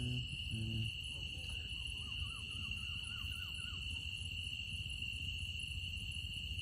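Night insects, crickets, chirring in a steady high-pitched chorus. A faint wavering call, rising and falling about eight times, sounds over it from about one and a half to four seconds in.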